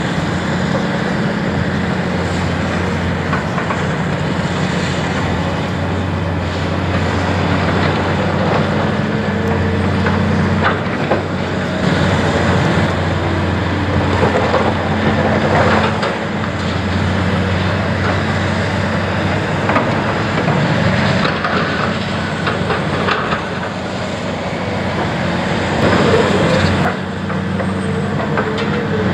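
Hydraulic excavator's diesel engine running steadily under load. Scattered cracks and clatters of concrete chunks come through as its pulverizer jaws crush and drop rubble.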